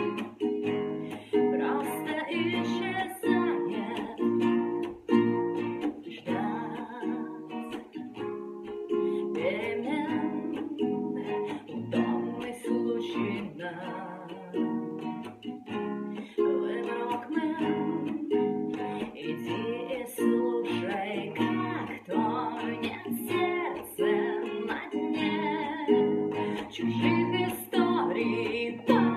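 Nylon-string classical guitar strummed in steady chords, with a woman singing along in places.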